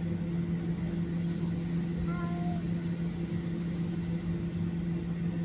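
Steady drone of a Boeing 737-800's CFM56-7B jet engines near idle while taxiing, heard inside the cabin as a constant low hum with a second tone above it.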